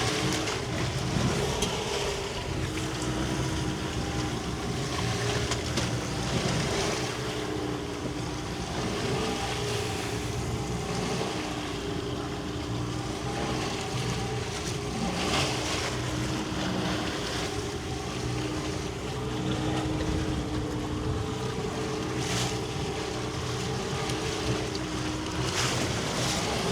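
Small fishing boat's motor running with a steady, slightly wavering hum, over wind and waves. A few brief gusts or splashes stand out.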